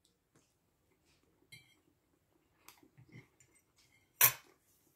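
Cutlery on a ceramic plate while pancake is being cut and eaten: a few faint clinks and scrapes, one with a brief ring about one and a half seconds in, and a sharper clink about four seconds in.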